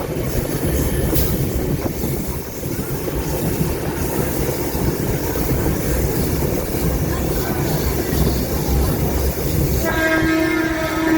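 Train running with a steady low rumble. About ten seconds in, its horn starts sounding a steady held note.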